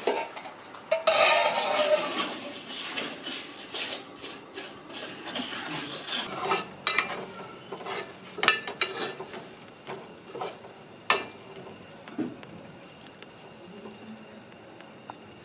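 Steel spoon stirring mutton curry in an aluminium pot, scraping and clinking against the metal, loudest about a second in, with several sharp knocks of the spoon on the pot, two of them standing out near the middle.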